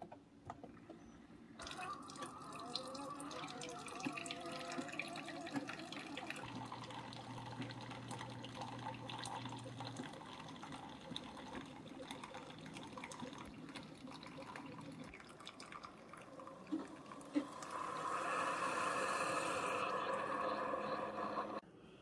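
Two Keurig K-Supreme single-serve coffee makers brewing 8-ounce cups: the water pump runs and coffee streams and trickles into glass mugs, with a steady low hum for a few seconds. Near the end it turns louder and hissier for about three seconds, then stops abruptly as the brew finishes.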